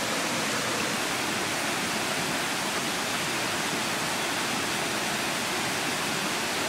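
Steady, even rush of flowing water, like a stream running close by, at a constant level throughout.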